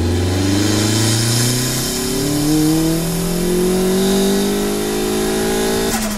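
Turbocharged Mitsubishi Mirage engine, fitted with a Garrett T25 turbo, pulling hard under boost, its revs climbing steadily for about six seconds. Near the end it lifts off with a short sharp burst of noise, the dose sound of a turbo with no blow-off valve.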